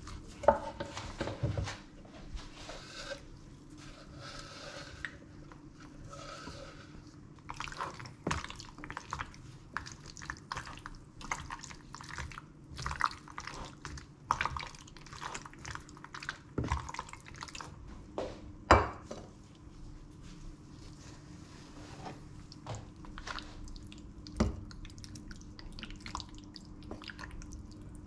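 Kitchen cookware handling: a spoon stirring and scraping pasta in a pan and serving it into a glass dish, with scattered clinks and several sharp knocks of utensils against pan and dish.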